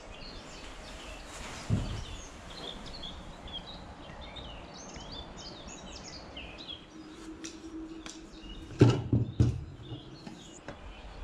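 Small songbirds chirping and twittering in the background. There is a single thud about two seconds in, and a few heavy knocks and thumps near the end, the loudest sounds, as camera gear is handled in a wooden hide.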